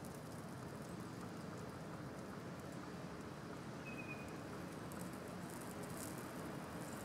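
Quiet, steady outdoor hiss with faint scattered crackles, more of them in the second half, from a small flame burning on a piece of foam board insulation among dry leaves in a clay chiminea. A short high chirp about four seconds in.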